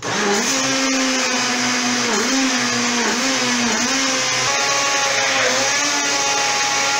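Countertop electric blender switched on and spinning up within a fraction of a second, then running steadily with a motor whine whose pitch wavers slightly under the load of the mixture.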